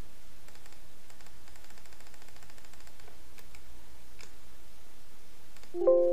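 Faint, scattered computer mouse clicks, then near the end a Windows alert chime: a chord of a few steady tones that starts suddenly and rings out. The chime signals a software warning message popping up.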